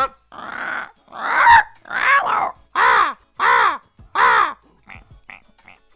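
A man's voice imitating a crow: a short hiss, then about five harsh caws, each rising and then falling in pitch. A few faint clicks follow near the end.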